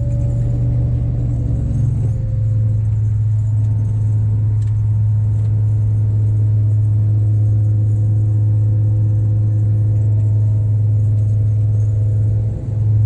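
Diesel-engined hovercraft running at a steady cruise over the ice, heard from inside its cabin as a constant low drone.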